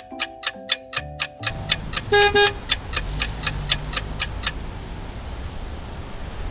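Fast ticking like a countdown clock, about four ticks a second, over the tail of a music cue. About a second and a half in, city street traffic takes over, with a short double car-horn honk around two seconds in. The ticking stops after about four and a half seconds, leaving the steady traffic rumble.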